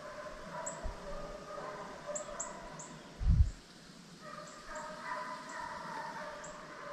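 Deer hounds baying in chorus in the distance, in long overlapping howling notes. There are faint high chirps throughout and a low thump about three seconds in.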